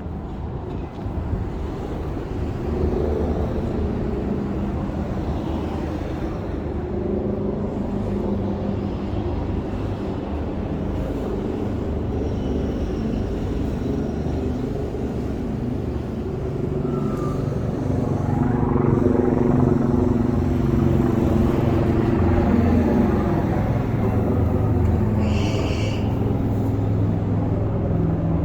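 Road traffic: vehicle engines running close by, growing louder about two-thirds of the way through. A brief high-pitched squeal sounds near the end.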